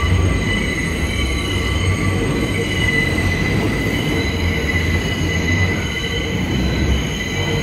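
Subway train running through a tight loop track, heard from inside the car: a steady low rumble of the wheels on the rails with a continuous high-pitched squeal of steel wheels grinding round the curve.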